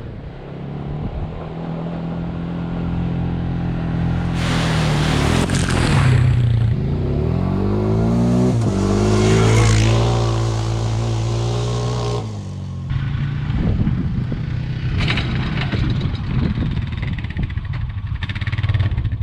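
Motor vehicle engine running, pulling harder from about four seconds in with its pitch climbing and shifting, then easing off after about twelve seconds into a rougher run with many short knocks and rattles.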